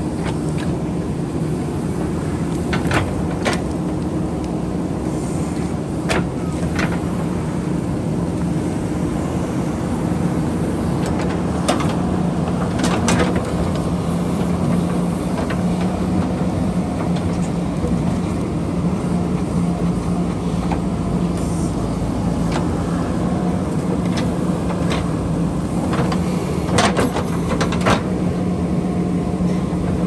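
JCB backhoe loader's diesel engine running steadily under load while its bucket digs into earth and rock, with sharp knocks and clanks scattered through as the bucket strikes stones.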